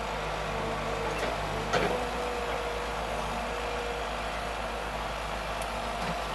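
Forestry harvester's diesel engine running steadily, with a held mid-pitched hum, as the boom and harvester head move among the trees. One sharp knock comes just before two seconds in.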